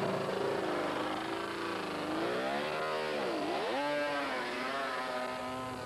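Racing motorcycle engine on the track: its pitch sags and drops low about halfway through, then climbs sharply as it accelerates and holds high.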